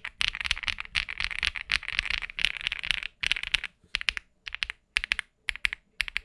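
Mechanical keyboard with KTT Strawberry linear switches, their stems lubed with Krytox 205g0, being typed on: fast, continuous keystrokes for about three seconds, then slower, separate keystrokes.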